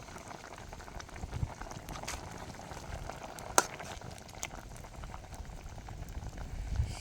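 Pot of food bubbling at a steady boil, with one sharp click about three and a half seconds in.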